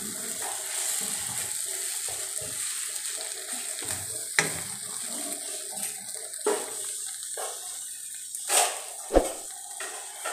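Sliced beef and green bell peppers sizzling in sauce in a wok while a wooden spatula stirs and tosses them, with a few sharp knocks and scrapes of the spatula against the pan.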